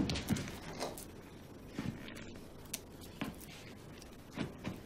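Faint scattered clicks and scrapes of a tin can being handled with a knife.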